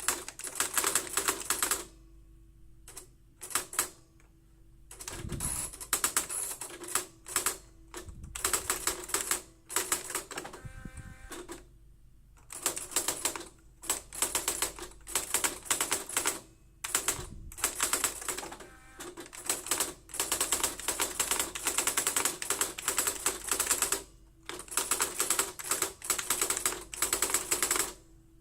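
Olympia Carrera De Luxe electronic typewriter printing in fast runs of rapid clicking strikes, broken by several short pauses, with a brief whir about eleven seconds in.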